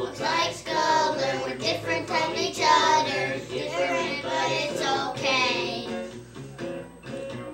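Young girls singing a children's song about frogs.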